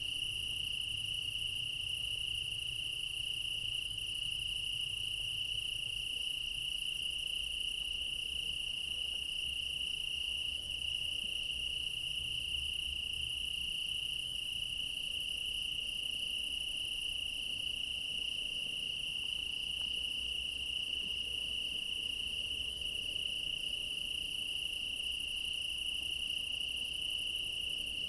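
Chorus of crickets chirping, a steady, high-pitched trill that never breaks.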